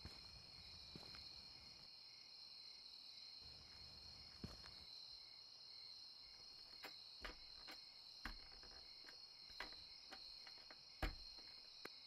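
Faint night ambience of crickets chirring steadily, with scattered soft footsteps and small clicks and knocks, and one sharper knock near the end.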